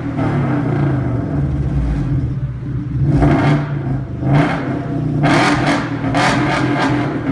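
Lada Priora with a loud aftermarket exhaust being revved while standing, the engine note swelling several times, with crackling bursts at the peaks.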